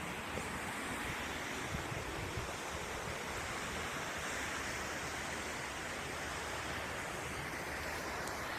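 Waterfall rushing steadily: a dense, even roar of falling water.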